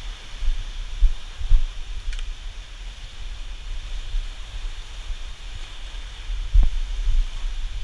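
Wind buffeting the microphone in uneven low gusts, over a steady rush of water.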